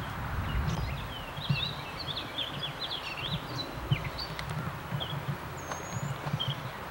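Low rumble and irregular knocking of a light rail train in motion, with birds chirping over it in a rapid run of short rising and falling calls.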